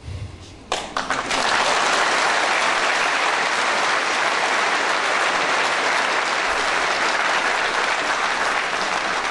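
An audience applauding, starting about a second in and quickly building to steady clapping.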